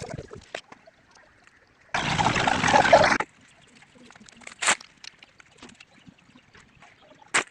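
Wet concrete mix tipped from a pan into band shuttering on a brick wall, one pour of a little over a second that starts and stops sharply. Two short sharp knocks follow later.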